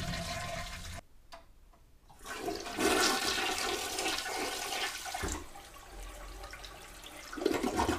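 Toilet doing a half flush through a Fluidmaster Duoflush dual-flush valve: water rushes into the bowl after a brief silence about a second in, loudest around three seconds in, then tapers off.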